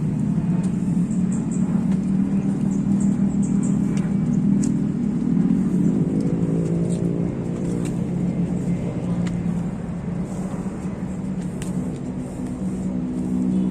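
ATV engine running steadily, its pitch rising as it speeds up about six seconds in, then dropping back, and rising again near the end.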